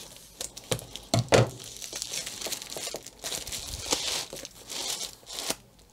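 Plastic packaging crinkling and rustling by hand: a white bubble mailer being opened and a diamond painting canvas in its cellophane sleeve being slid out, with a couple of sharper crackles about a second and a half in.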